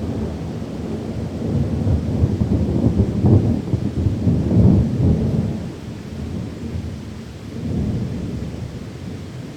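Rolling thunder rumbling low over steady rain, swelling in the middle and again near the end.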